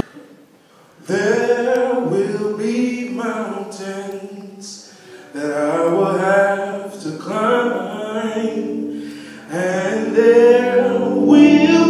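Gospel singing in slow, long-held phrases, starting about a second in after a brief hush.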